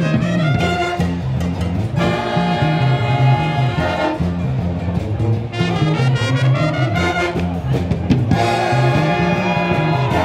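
Student wind and brass street band playing: flutes, saxophone, trumpets and trombones over a bouncing repeated bass line, with loud held brass chords twice.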